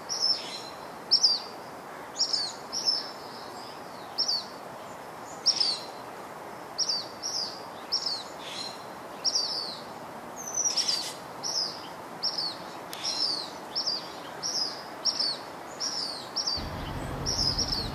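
A bird chirping over and over: short, high notes that drop in pitch, one or two a second, over a steady outdoor hiss. A low rumble comes in near the end.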